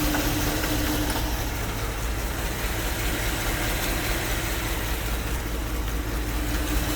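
2008 GMC Yukon's 5.3-litre V8 running at idle with a steady low rumble while it misfires. The injector fuse has been bridged with a bare piece of wire, which the mechanic blames for the fault. A steady hum over the engine fades out about a second in.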